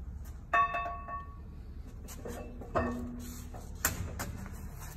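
Cummins 6BT camshaft and its gear being worked out of the block by hand, knocking against the metal around it: about four sharp metallic clinks, the first two ringing briefly.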